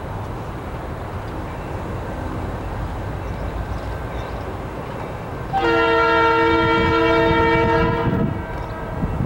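Diesel locomotive multi-chime air horn, from Norfolk Southern SD40-2 No. 3397, sounding one long chord blast of about two and a half seconds starting about five and a half seconds in, over a steady low rumble.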